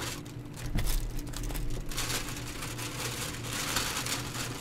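Plastic delivery bag and takeout packaging crinkling close to the microphone as the food is unpacked, with crackles coming in uneven bursts, loudest about a second in.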